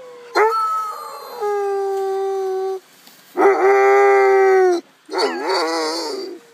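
Sled husky howling: three howls in a row, the first starting with a sharp rise and then held, the second a steady held note, the third wavering up and down.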